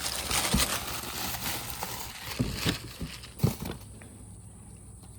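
Wrapping material crinkling and rustling as an item is unpacked from a box, busiest over the first three seconds and dying down after about four seconds.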